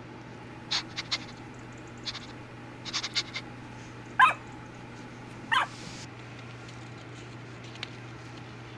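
Two short, high, dog-like yips about a second and a half apart, each falling in pitch, preceded by a few faint clicks of paper and handling.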